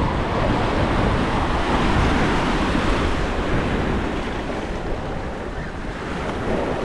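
Ocean surf washing and breaking against jetty rocks, a steady rushing wash, with wind buffeting the microphone.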